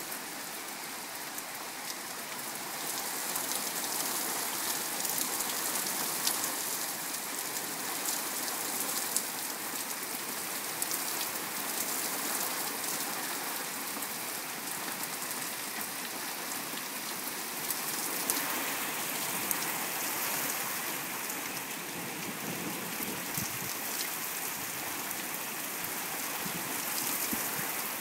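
Heavy rain falling steadily, a constant hiss with scattered ticks of drops striking.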